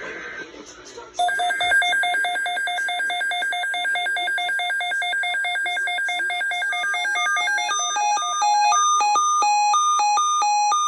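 Weather alert radio's electronic alarm sounding for a severe thunderstorm watch: fast, rapidly pulsing beeps start about a second in, turning into a stepping pattern of several alternating notes from about seven seconds in. Just before it, the tail of a burst of SAME digital header tones.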